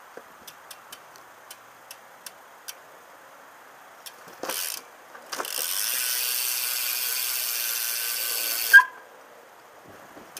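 BMX bike's Shadow Raptor rear hub ratcheting: scattered clicks of the freewheel pawls, then a steady buzz for about three and a half seconds as the wheel spins freely, ending with a sharp click.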